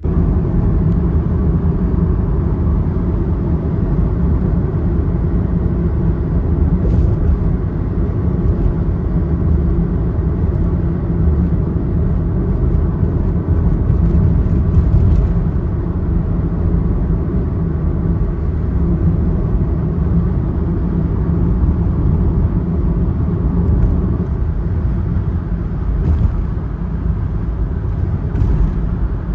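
Steady low rumble of a small van on the move, engine and tyre noise heard from inside the cabin, starting suddenly and holding an even level.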